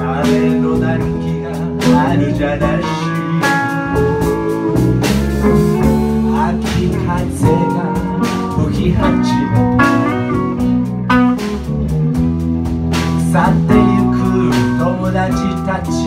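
Live blues band playing: electric guitar and ukulele over a drum kit keeping a steady beat.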